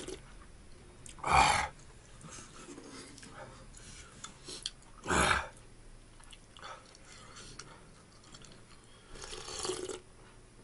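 Ramen broth being slurped from a metal spoon: two loud slurps, about a second and a half and five seconds in, and a softer one near the end. Light clicks of the spoon against the bowl come in between.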